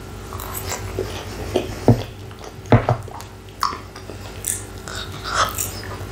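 Close-miked chewing of fries, with wet mouth noises and lip smacks, broken by a few sharp clicks about two and three seconds in.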